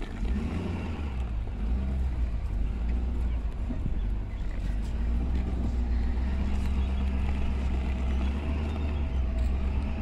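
Pickup truck engine running as the truck creeps slowly along in low gear, a steady low rumble.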